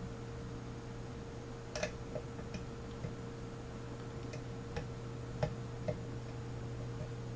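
Faint, irregular metallic clicks of a pick and tension wrench working the pin tumblers of a grimy old Master Lock 150 laminated steel padlock as the pins are picked, over a steady low hum.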